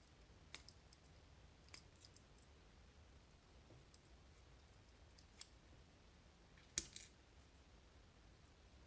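Small metal parts of a dimple lock clicking as it is taken apart: a few faint, scattered clicks, then a louder double click about seven seconds in, against near silence.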